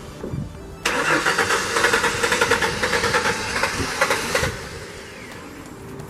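Ford Mustang's starter cranking the engine in fast rhythmic pulses for about three and a half seconds, then stopping. The engine cranks but does not start.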